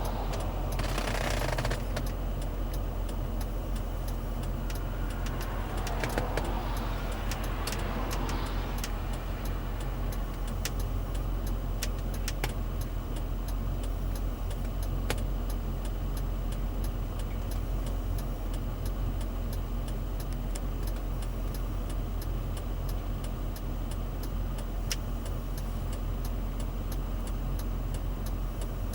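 Mercedes-Benz ML SUV engine running steadily while driving off road, with scattered sharp clicks and knocks and two short swells of louder noise about a second in and around six to nine seconds in.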